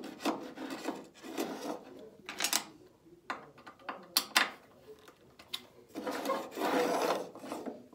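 A screwdriver turning a mounting screw in a wooden table-saw zero-clearance insert, and a metal torpedo level sliding and set down on the wood: irregular scraping and rasping with a few sharp clicks.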